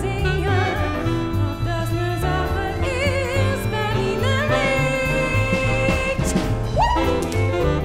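A woman sings a jazzy song with vibrato over a band with a steady bass line. She holds one long note about five seconds in.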